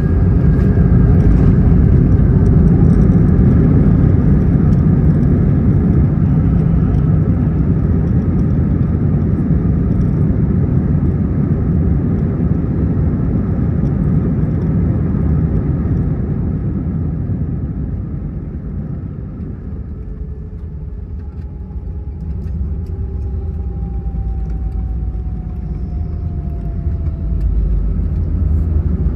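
Airbus A319 cabin noise from engines and airflow as the jet slows on the ground. A loud rumble eases off over the first twenty seconds, then a single whine falls slowly in pitch near the end.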